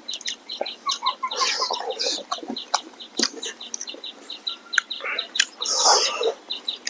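Chickens clucking, with louder calls about one and a half seconds in and again near the end, over a fast, even chirping of about six short high notes a second.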